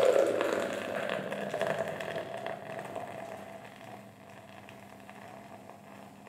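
Beer poured from a can into a glass mug, splashing hard at first and then fizzing as the foam rises, fading away over the next few seconds.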